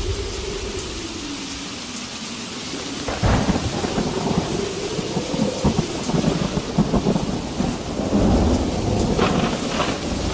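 Rain and wind: a steady rain hiss, with low crackling rumbles from about three seconds in that grow stronger near the end.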